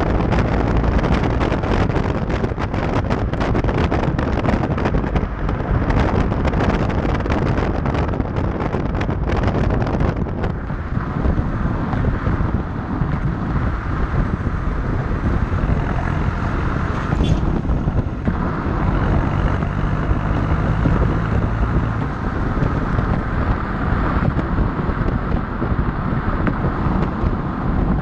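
Ford Aspire TDCi diesel engine's note through a partial free-flow exhaust with an extension tip, heard right at the tailpipe as the car drives. Tyre and wind noise run under it, with heavy wind buffeting on the microphone for roughly the first ten seconds.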